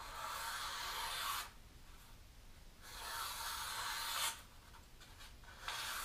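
Kohetsu Aogami Super kitchen knife slicing through a sheet of paper in three long strokes, each a dry hissing rasp of about a second and a half. It is a paper-cutting test of the freshly sharpened edge for chips.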